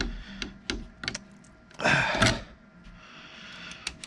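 Small metal clicks and knocks of an offset wrench working screws into the printer's aluminium frame, with a louder rasping scrape about two seconds in and one more click near the end.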